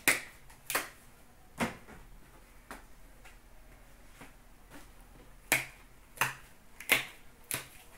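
A series of sharp clicks and taps from trading cards and their packaging being handled on a counter, roughly one every two-thirds of a second, in two runs with a quiet gap of a couple of seconds between them.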